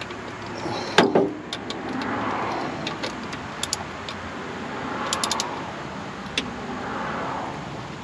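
Ratchet wrench on a socket extension tightening a car's oil drain plug: a sharp clack about a second in, then a few slow strokes, each with a rasping swell and short runs of ratchet clicks.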